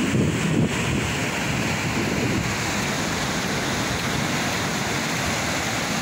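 Ocean surf breaking and washing up a sandy shore in a steady rush, with wind buffeting the microphone, a little stronger at the start.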